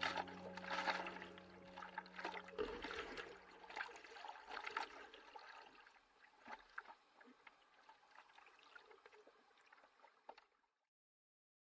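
Soft water splashing and trickling over a low held note, dying away over the first few seconds and fading to near silence by about six seconds in.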